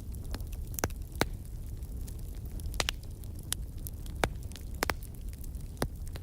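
Burning firewood crackling: sharp, irregular pops and snaps at uneven intervals over a low, steady rumble.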